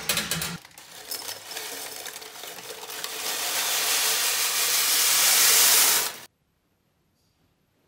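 Crunchy baked granola clattering and rattling as it is poured off a baking tray into a glass jar. The rattle builds and then cuts off abruptly about six seconds in.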